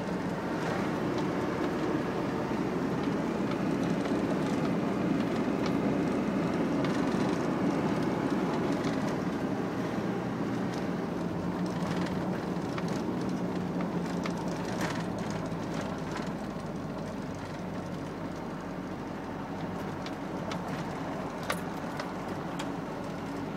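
A vehicle rolling slowly along a driveway: steady running noise with a low hum, and tyres crackling and popping over the gravel surface, a little louder in the first half.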